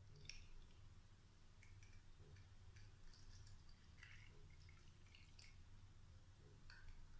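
Near silence with faint drips and small splashes of watermelon juice poured from a steel bowl into a paper cup.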